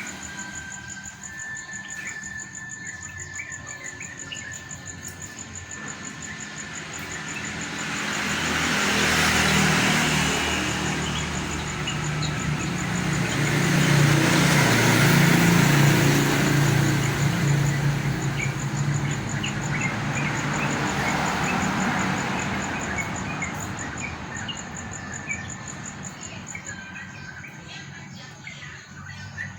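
Outdoor birds chirping with many short calls, over a steady high buzz of insects. Through the middle a louder low rumble swells and fades twice.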